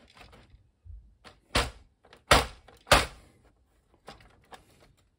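Knocks and clicks of the Commodore VIC-20's plastic case being handled and knocked, with three loud thumps about a second and a half to three seconds in. The case is being disturbed to chase a video fault that the owner thinks may come from something loose inside.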